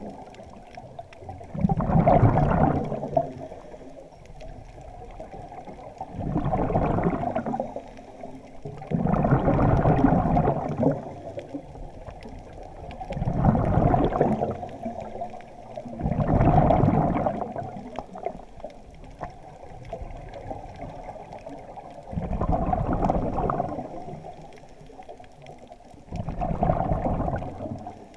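Scuba regulator exhaust: a diver's exhaled breath bubbling out underwater in regular bursts every three to four seconds, seven breaths in all, with one longer pause midway.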